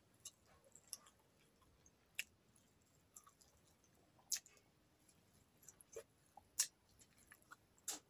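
Eating by hand, close to the microphone: rice and spicy fish curry chewed with sharp wet mouth clicks and smacks, a few much louder than the rest, spaced a second or two apart.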